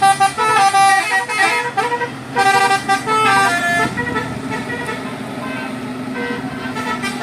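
Bus 'telolet basuri' musical horn playing a tune of quick stepped notes for about the first four seconds, then the bus engine running with fainter horn notes over it.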